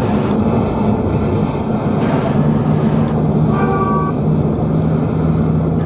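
A car driving at road speed, heard from inside the cabin: a steady low engine hum under road and wind noise. A short, higher-pitched sound comes about halfway through.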